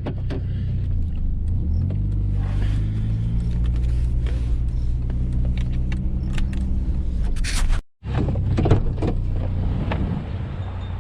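GMC Sonoma pickup truck driving, its engine and road noise steady; the engine note rises about two seconds in as it pulls away, then holds. The sound breaks off for an instant about eight seconds in and resumes rougher, with a few knocks.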